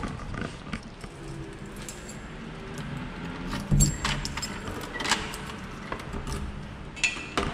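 Light jangling and a series of sharp clicks from an apartment front door's lock and handle as it is unlocked and pulled open.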